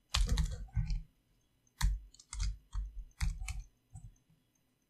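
Computer keyboard keystrokes and clicks in short clusters, with brief pauses between them, as code is typed and edited.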